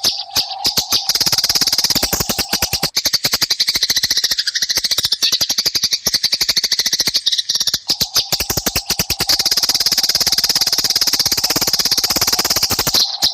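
Eurasian tree sparrows chattering in a fast, continuous string of harsh chirps, the excited calls of sparrows fighting.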